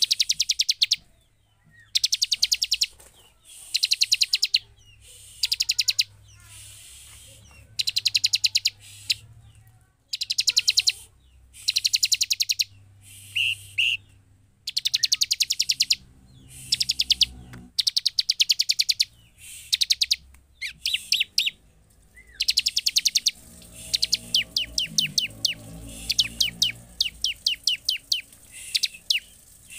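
Bar-winged prinia (ciblek) calling in repeated bursts of very rapid, high, ticking notes, each burst about a second long with short pauses between. In the last few seconds the notes come as a looser, uneven series of separate chips.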